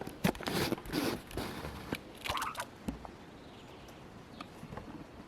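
A squirrel crunching and chewing on food, with a run of crunches in the first half and a sharp click just before the middle, then only faint ticks.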